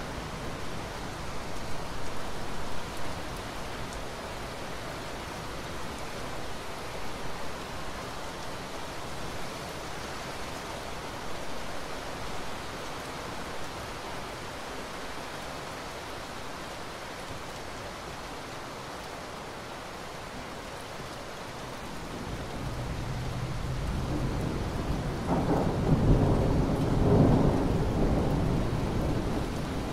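Steady rain falling. A low rumble of thunder builds about three-quarters of the way through and is loudest near the end before easing off.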